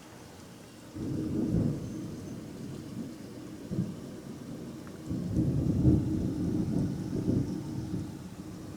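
Thunder rumbling in two long rolls over steady rain, the first starting about a second in and a louder one about five seconds in. It sounds loud.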